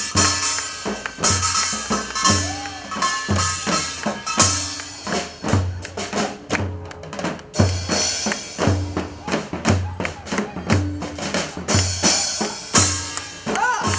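Live percussion music: a drum kit and a large Korean barrel drum (buk) beat a steady rhythm with a heavy low beat about once a second, with a tambourine jingling over it and a backing melody.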